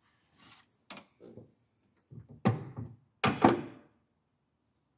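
A series of knocks and thunks: a sharp click about a second in, then the loudest thunks about two and a half and three and a half seconds in.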